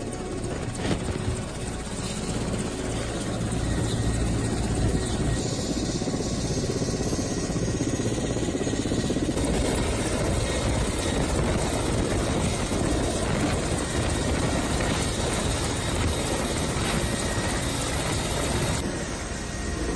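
Loud, steady machine noise with a low hum underneath, changing little throughout.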